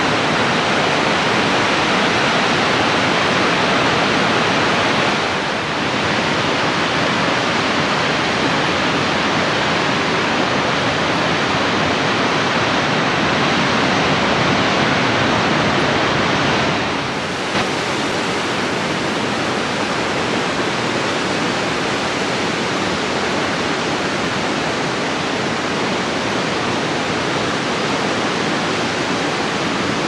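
Dam spillway release: a heavy flow of water pouring over the dam and crashing into the pool below, a loud steady rush of falling water. It dips briefly in level twice, about five and seventeen seconds in.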